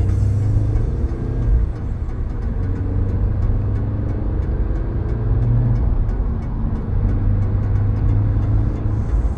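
Flat-four boxer engine and exhaust of a Subaru BRZ/Scion FR-S/Toyota 86 with JDL unequal-length headers and an Invidia Q300 cat-back, heard from inside the cabin while driving: a steady low drone. A pop song plays over the car's speakers, its hi-hat ticking on a regular beat.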